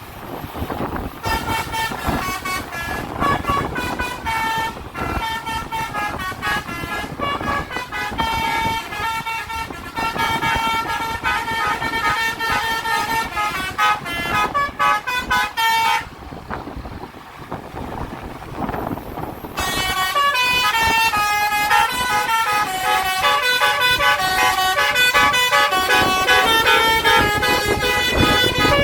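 Telolet basuri multi-tone air horn on a tour bus playing a melody of quick stepped notes over road and engine noise. It breaks off for about three seconds past the middle, then plays on, louder.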